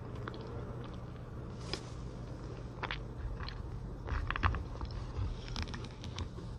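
Chocolate snacks being handled and picked up off a wooden serving board: scattered small clicks and taps, with a few soft thumps about four seconds in.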